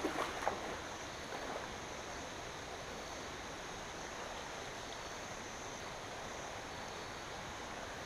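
Feet splashing while wading into a shallow river for the first half second, then the river's steady flowing rush.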